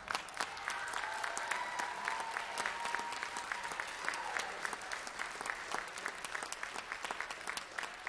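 Audience applauding after a jazz band piece ends, with one long held cheer rising above the clapping in the first half.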